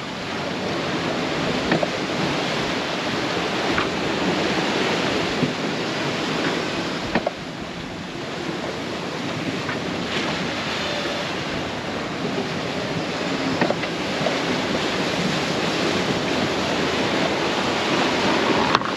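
Steady rush of wind and breaking sea around a small sailboat surfing downwind at about 7 knots in a freshening wind, with wind buffeting the microphone. A few faint knocks come through the rush.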